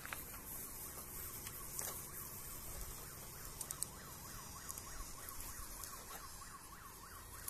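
A few sharp metallic clicks of long tongs against a charcoal grill's grate as roasting chestnuts are turned. Behind them a faint siren yelps steadily, rising and falling about three times a second.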